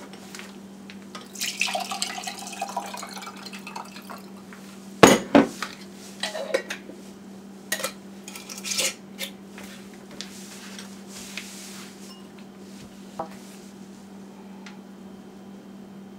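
Sorrel drink poured from a glass mason jar through a metal mesh strainer into a wine glass, followed by sharp clinks and knocks of glass and metal, the loudest about five seconds in, as the jar and strainer are handled and set down. A steady low hum runs underneath.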